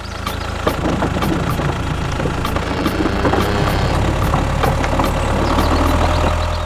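Tractor engine running steadily with a low rumble.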